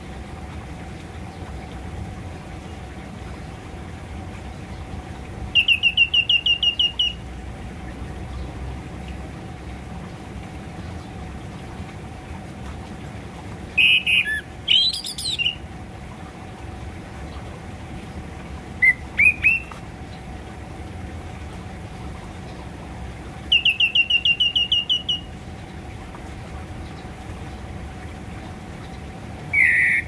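Orange-headed thrush calling in short spells: two quick trills of about ten clipped notes each, a few sliding whistled notes between them, and a single note at the end, over a steady low hum.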